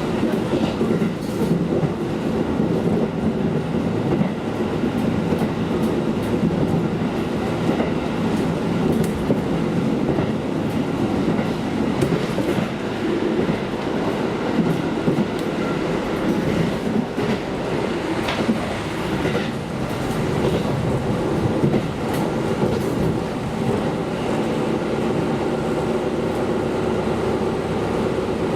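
A KiHa diesel railcar running along the line: a steady engine and running drone, with occasional short clicks from the wheels and track.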